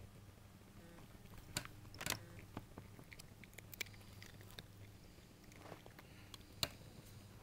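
A cat crunching dry cat treats: faint, irregular crunches and clicks of chewing.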